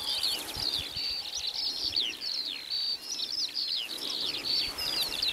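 Songbirds singing: a dense, unbroken run of quick chirps and whistles, several birds overlapping.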